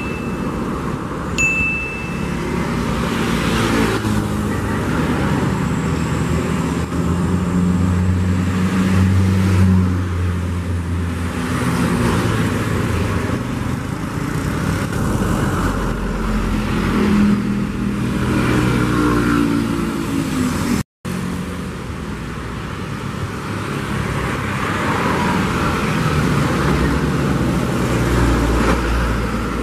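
Heavy, slow-moving road traffic: the diesel engines of buses and trucks running close by, with an engine rising in pitch as a vehicle pulls away around the middle. A short high ding comes about a second and a half in, and the sound drops out for an instant about two-thirds through.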